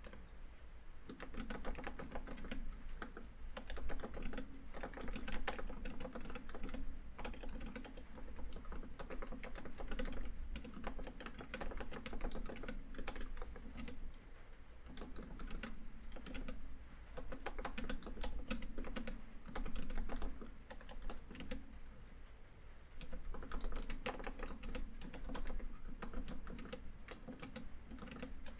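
Laptop keyboard typing in quick bursts of key clicks with short pauses, over a steady bed of rain on a tin roof.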